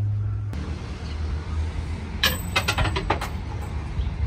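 Shrine bell (suzu) shaken, a quick metallic jingle of several strikes lasting about a second with a high ringing tail, over a low steady rumble.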